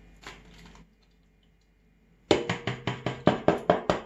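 Milk glugging out of a nearly empty carton tipped almost level over a steel pot: after a quiet start, a quick run of regular glugs, about five a second, begins a little past halfway.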